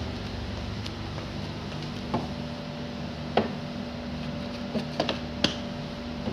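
Swiffer sweeper with a dry pad being pushed across a tile floor, its swivel head giving several sharp clicks and knocks a second or so apart, over a steady hum.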